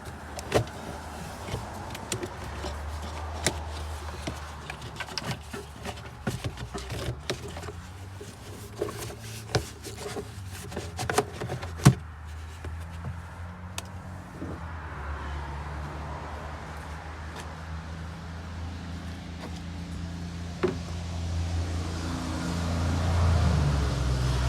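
Audi Q7 3.6L engine running, with a scatter of sharp clicks through the first half; the running sound grows slightly louder near the end.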